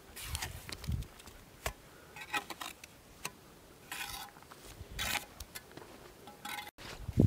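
Steel bricklaying trowel scraping and tapping mortar on a brick course in about half a dozen short, sharp strokes.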